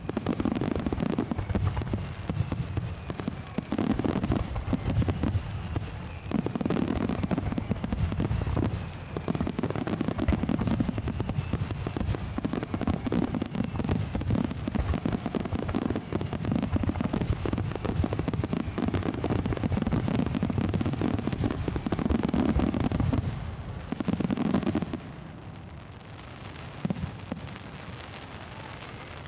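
Finale barrage of aerial fireworks: shells bursting in rapid, overlapping succession with dense crackling. The barrage stops suddenly a few seconds before the end, leaving a low hiss.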